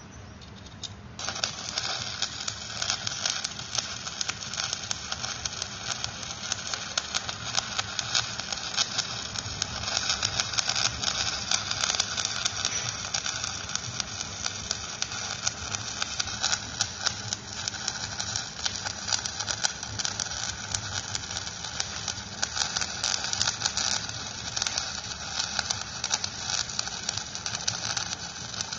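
Electric arc welding: the arc strikes about a second in and then crackles and sizzles steadily, with many sharp pops, as a bead is laid on an excavator bucket adapter.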